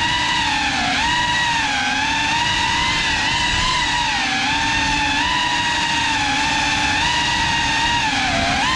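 GEPRC Cinelog 35 cinewhoop's brushless motors and ducted propellers whining in flight, the pitch rising and falling with the throttle, with a low rumble underneath. Near the end the whine dips and then climbs sharply.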